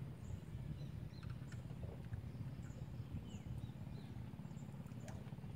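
Steady low, uneven rumble of open-air background noise, with a few faint short high chirps scattered through it.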